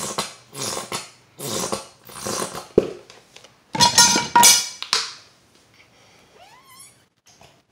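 A pet dog barking repeatedly, about six barks in quick succession with the loudest two about four seconds in, followed by a faint short whine that rises and falls.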